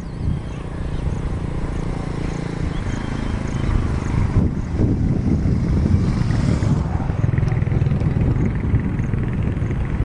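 Wind buffeting and road rumble from a moving vehicle: a steady, rough low rumble.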